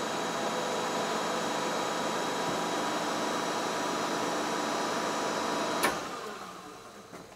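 Steady whirring hum of a running machine motor, stopped with a sharp click about six seconds in, after which it dies away.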